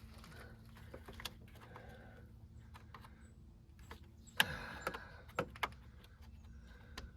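Hand tools and engine parts being handled: scattered small clicks and taps, with one sharper knock about four and a half seconds in.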